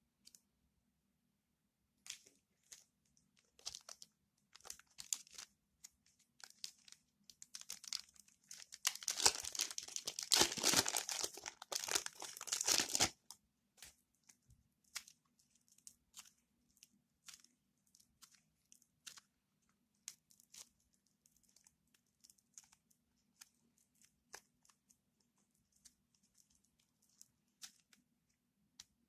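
Slime being worked by hand, giving sticky crackles and clicks. The clicks come sparsely at first, then bunch into a dense run of crackling and tearing noises a few seconds in, the loudest part, before thinning back to scattered clicks.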